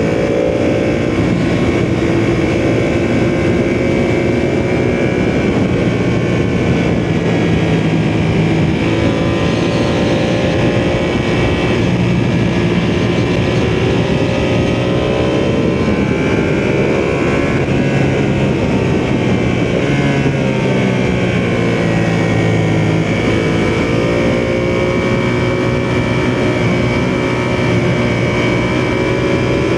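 Ducati sportbike engine running under way, heard from the rider's position, its pitch rising and falling several times with throttle and gear changes.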